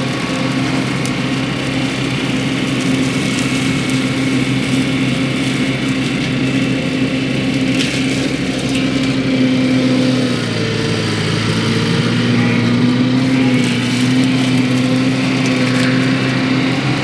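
Mini skid steer engine running at high speed to drive a hydraulic forestry mulcher. About ten seconds in the engine pitch sags for a moment and then recovers, as when the mulcher head takes load.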